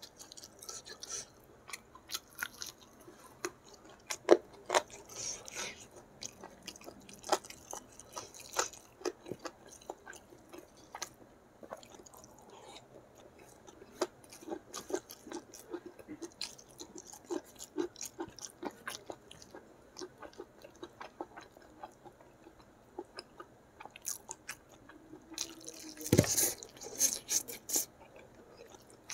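Close-up eating sounds: wet chewing, crunching and lip smacks of rice, curried chicken and chili sambal with petai beans, eaten by hand, in many short irregular clicks. About three-quarters of the way through comes one louder, hissing rush, like breath blown out through pursed lips.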